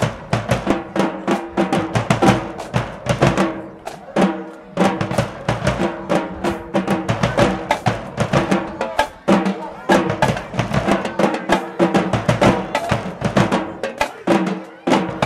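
Marching band drumline playing a fast cadence: bass drums and snare drums striking in a dense, continuous rhythm.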